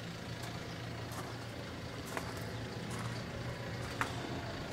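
Kubota M62's four-cylinder turbo diesel engine idling steadily, with a couple of faint clicks.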